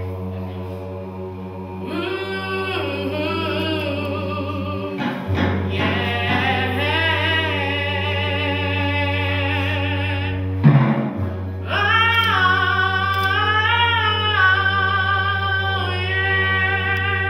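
A woman singing a wavering melody with heavy vibrato over a steady low drone. The voice comes in about two seconds in and breaks off briefly after a single loud knock around the middle, then resumes.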